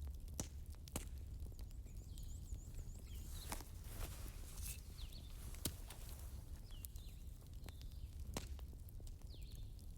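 Wood fire burning with a low steady rumble and irregular sharp crackles and pops. Faint high chirps sound now and then in the background.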